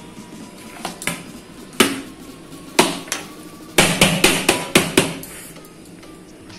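Knocking on the upturned bottom of a stainless-steel cake tin by hand, to loosen the cake onto the plate beneath: a few single knocks, then a quick run of about half a dozen.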